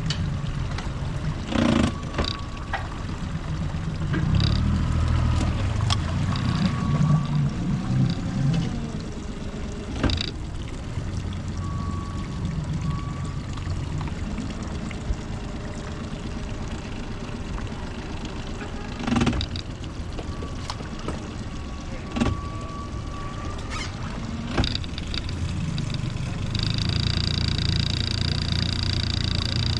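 Small boat on open water: a low rumble that swells and fades, with water noise and several sharp knocks. Near the end a steady high-pitched tone with overtones sounds for a few seconds.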